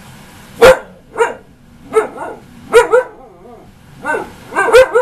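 Young Siberian husky 'talking back': a run of about ten short bark-like yowls, some in quick pairs, each bending up and down in pitch. It is the demanding vocalising of a husky that wants something.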